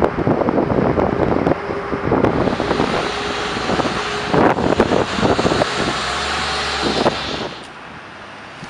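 Large off-road dump truck loaded with debris driving past, its diesel engine running with a steady hum under clanking and knocking from the load and body. The noise drops away suddenly near the end, leaving quieter street sound.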